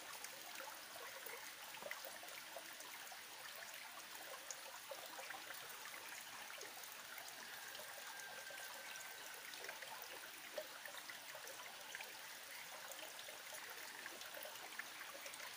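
Faint steady trickle of a small forest stream, with a few soft clicks over it.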